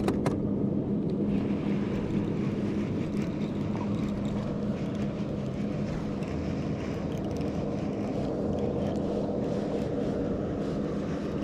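Electric trolling motor on a kayak running with a steady hum, over a constant wash of noise.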